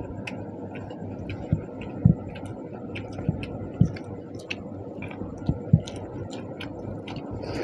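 Close-up eating sounds of someone eating panta bhat, water-soaked rice: wet chewing and small mouth clicks over a steady background hiss, with about six dull thumps.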